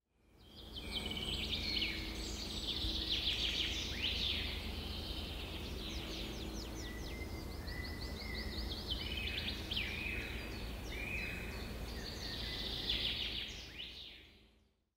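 A chorus of several wild birds singing and calling, full of quick falling whistles and trills, over a low steady rumble. It fades in at the start and fades out near the end.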